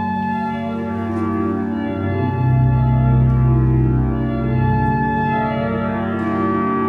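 Church pipe organ being practised, playing long held chords that change every second or so, with a deep bass note coming in about two seconds in.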